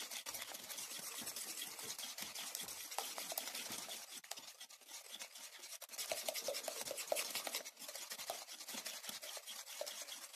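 Wire whisk beating eggs and sugar in a ceramic bowl: a fast, even run of scraping, clicking strokes, with light clinks of the wires against the bowl. It eases briefly about halfway through, then picks up again.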